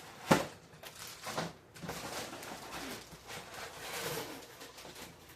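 Toy figure packaging being handled and opened: one sharp click, then irregular rustling and crinkling.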